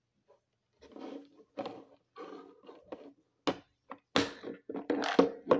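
Small plastic toy suitcase being handled and pressed shut: irregular knocking of plastic pieces, growing louder in the second half with a few sharp clicks as the lid closes.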